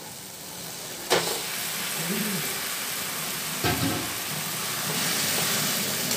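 Shredded mushrooms tipped into hot oil and masala in a kadai, sizzling steadily and growing louder once they land. A sharp clink about a second in and a knock just before four seconds.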